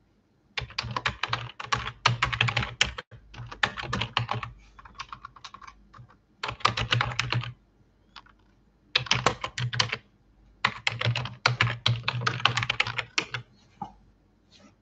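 Staedtler Noris graphite pencil writing on paper in a book, in five bursts of quick scratchy strokes with short pauses between them, the desk adding a dull knock under the strokes.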